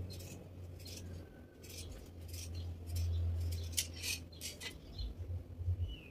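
Scissors cutting through fabric: a run of irregular snips, with a low steady hum beneath.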